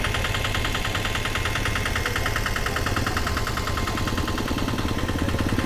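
A motor vehicle's engine idling steadily with a fast, even clatter.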